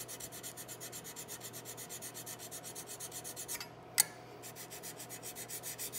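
Mill file draw-filing a steel rifle barrel flat to dress a touch-hole liner flush, in rapid, even scraping strokes. The strokes break off briefly around four seconds in, with a single sharp click, then start again.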